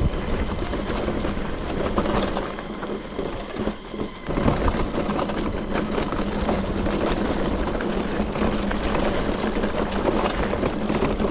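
Mountain bike rolling down a dirt singletrack: tyres on dirt and a continuous rattle of the bike over bumps, with a short quieter moment about four seconds in.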